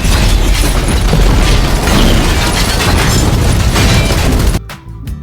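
Loud, dense booms and rumble of explosion-like sound effects, mixed with music. About four and a half seconds in they cut off abruptly, leaving quieter music with a beat.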